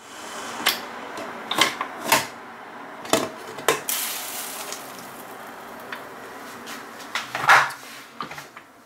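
Stainless-steel pressure cooker lid being unlocked, lifted off and handled: several sharp metal clicks and clanks, the loudest near the end, over a steady hiss of steam.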